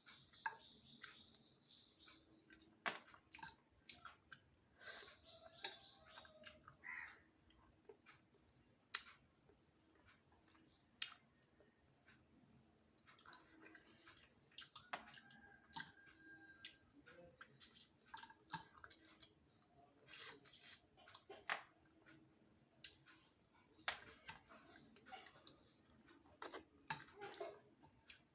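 Close-miked chewing and mouth sounds of a person eating by hand: irregular wet smacks and sharp clicks, the loudest about eleven seconds in.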